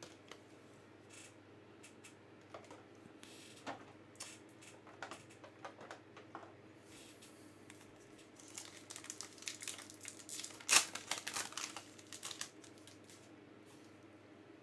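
Trading-card packs being opened and cards handled: scattered crinkles of pack wrappers and small clicks of cards being flicked through. The rustling and clicking thicken in the second half, with the loudest snap about eleven seconds in.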